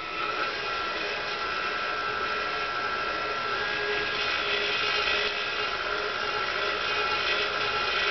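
Electric stand mixer running steadily with a high motor whine, its flat beater turning flour and butter as buttermilk is slowly mixed in for biscuit dough.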